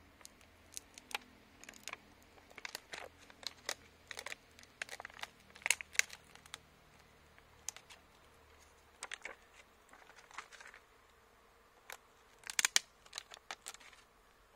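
A plastic sheet crinkling and crackling as it is peeled off the top of a stingless bee hive box, in irregular sharp crackles with a louder cluster near the end.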